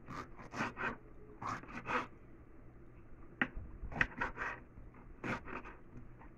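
Knife slicing a green bell pepper on a wooden cutting board: short crisp cuts and taps on the board, in irregular clusters with a pause of about a second and a half around the middle.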